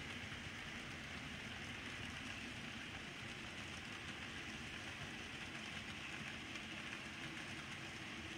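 N scale model train running along its track: a steady whir and rumble of the motor and wheels on the rails.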